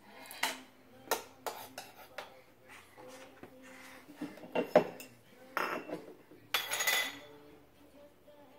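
Metal canning-jar lids and screw bands clinking and clattering against a wooden floor and glass jars as a baby bangs and drops them. There is a series of sharp separate clinks, then two longer rattles a little past the middle.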